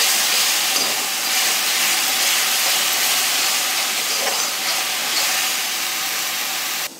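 Onion and ginger-garlic paste sizzling steadily in hot mustard oil in a steel kadhai as it is stirred with a metal spoon, being fried until the oil separates. The sizzle cuts off suddenly near the end.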